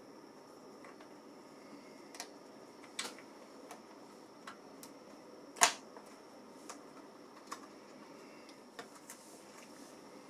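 Scattered small clicks and taps of plastic and metal laptop parts being handled while a drive cable is fitted inside the case. One sharper, louder click comes about halfway through.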